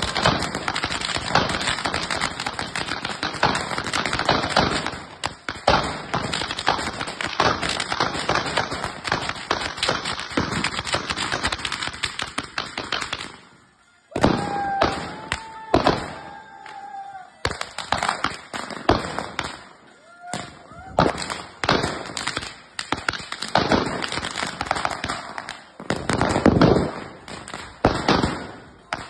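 Firecrackers packed inside a burning effigy going off in a dense, rapid crackle of bangs for the first half. After a short lull about halfway through they thin to scattered single bangs and pops.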